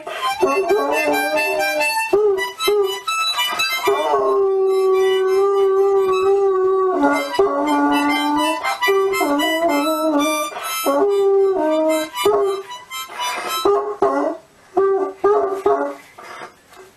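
A toddler blowing a harmonica in choppy, wavering chords while a bloodhound howls along with long held notes. Both turn broken and die away near the end.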